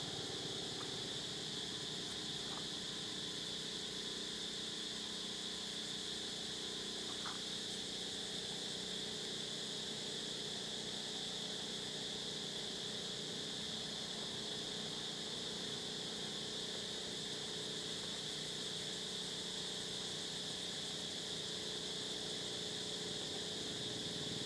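Steady outdoor background drone: an even high-pitched hiss with a low steady hum beneath it, and one faint short squeak about seven seconds in.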